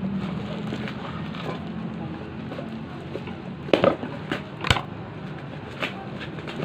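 Parcel packaging being worked open by hand: plastic wrap and packing tape crinkling and rustling, with a few sharp crackles and snaps close together about four seconds in and one more near the end.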